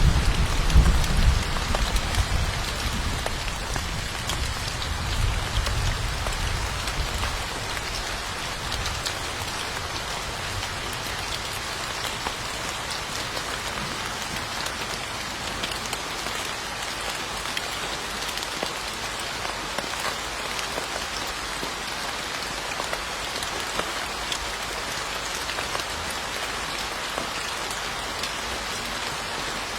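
Steady rain falling on a surface, with many individual drop ticks through an even hiss. A low rumble dies away over the first several seconds.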